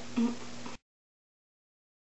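A brief faint vocal sound over room tone, then the audio cuts off to dead silence under a second in.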